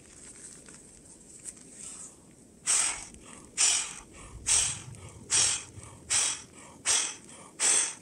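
Inflatable sleeping pad being blown up by mouth: after some faint rustling of the pad, seven quick, loud puffs of breath into its valve, evenly spaced a little more than one a second, starting about two and a half seconds in.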